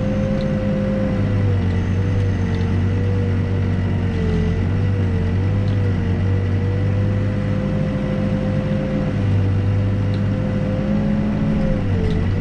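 Backhoe's diesel engine running steadily while digging, with a whining tone that dips in pitch a few times, most clearly near the end.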